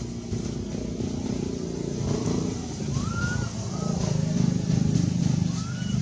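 Low engine rumble of a motor vehicle, swelling louder through the middle as it passes, with four short rising-and-falling chirp-like calls over it.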